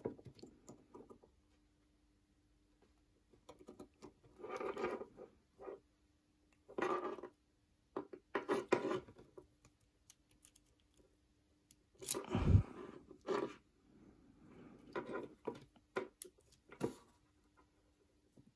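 Metal tool clicking and scraping against a push-pull pot's switch lugs while a short length of tinned copper wire is bent round into place, in scattered short bursts. A louder knock about twelve seconds in, and a faint steady hum underneath.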